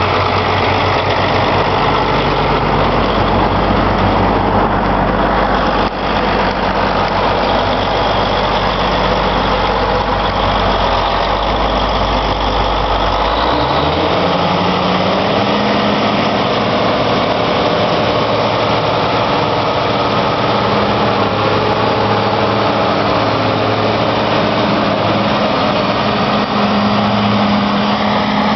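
Caterpillar Challenger rubber-track tractor's diesel engine running. The deep low rumble of the first half gives way, about 14 seconds in, to a rising engine note that settles at a higher steady pitch as the tractor is throttled up and driven.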